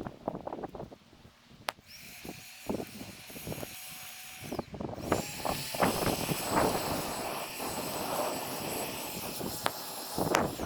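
Bonfire of dry branches and bamboo crackling with irregular sharp pops, and from about two seconds in a steady high hiss with a thin whistling tone over it.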